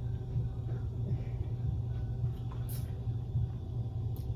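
A steady low hum with a few short, sharp clicks over it.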